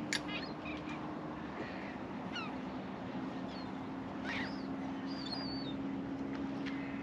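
Seabirds feeding over a fish shoal, giving short, scattered high squeals and chirps that slide up or down in pitch. There is a sharp click near the start and a steady low hum underneath.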